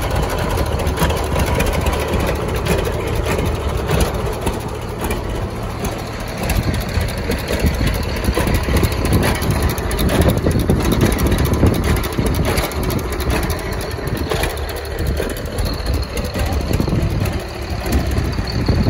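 John Deere unstyled B tractor's two-cylinder engine idling steadily.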